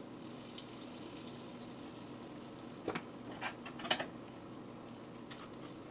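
Cumin seeds frying in hot oil in a kadai: a steady sizzle with fine crackling, and a few light clicks about three to four seconds in.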